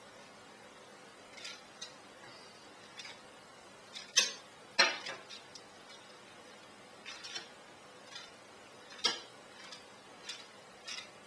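Scattered light clinks and taps of a kitchen knife on hard kitchen surfaces while baguette dough is scored, the loudest pair a little over four seconds in and another sharp one about nine seconds in.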